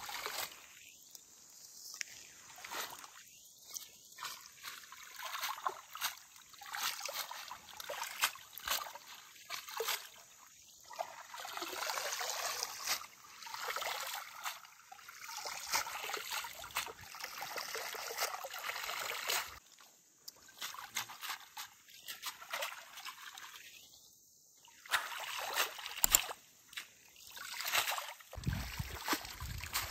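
Bunches of leafy greens swished and rinsed by hand in a shallow stream: uneven sloshing and splashing that swells and fades over the stream's steady trickle.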